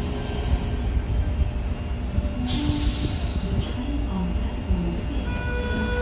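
Sydney Trains Tangara electric multiple unit rolling slowly alongside the platform and stopping, with a low rumble throughout. A short burst of air hiss comes about two and a half seconds in, and steady tones start up near the end.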